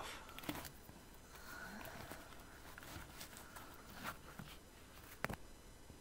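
Faint handling noises of a leather handbrake gaiter and its plastic holder being pulled off a car's centre console: soft rustling with a few small clicks, the sharpest about five seconds in.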